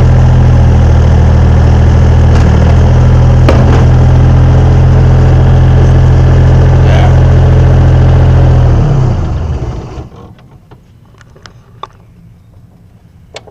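Mustang 930A skid steer's three-cylinder Yanmar diesel running steadily, then shut off about nine seconds in, its pitch sinking as it winds down to a stop. A few faint clicks and knocks follow.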